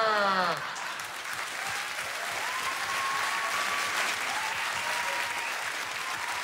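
The end of a loud, drawn-out shout falling in pitch, cut off about half a second in, then a theatre audience applauding.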